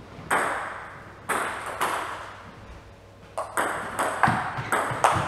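Table tennis ball hit back and forth with paddles and bouncing on the table: sharp clicks, each ringing briefly in a large hall. A few widely spaced strokes come first, then the hits come quickly from about four seconds in.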